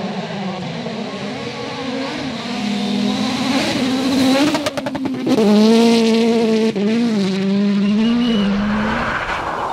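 Rally car engines running at high revs on a gravel stage, the note rising and falling with throttle and gear changes. About halfway there is a quick burst of sharp pops, followed by a stronger, steadier engine note that dips and climbs again.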